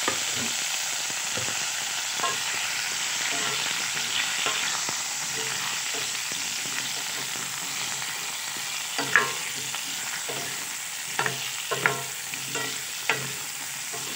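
Potato wedges sizzling as they fry in hot oil in a steel kadai, a steady hiss. From about nine seconds in, a spatula knocks and scrapes against the pan several times as the potatoes are turned.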